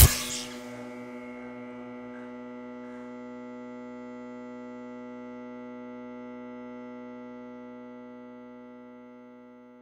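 A steady electronic drone: one held tone with many overtones, like a hum, that slowly fades away in the last two or three seconds.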